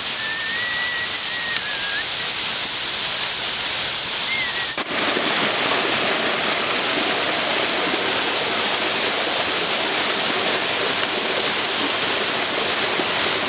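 Waterfall's falling water rushing in a loud, steady roar, with a thin high whistle over it in the first two seconds and a momentary break about five seconds in.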